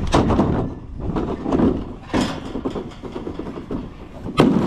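Black plastic feed trough being handled and carried, with rustling and scuffing and three sharp knocks about two seconds apart, over a low rumble.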